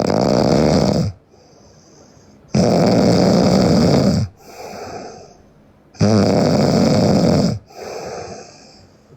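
A sleeping young woman snoring loudly: three long snores about three seconds apart, each followed by a softer, shorter breath.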